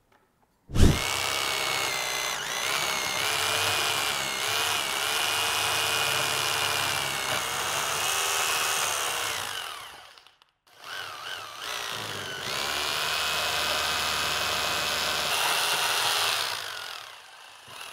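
Bosch rotary hammer drilling deep 20 mm anchor holes through exterior wall insulation into perforated clay brick. The motor runs in two long bursts under load, about nine seconds and then about six seconds, with a short stop between. Its whine wavers slightly as the bit works.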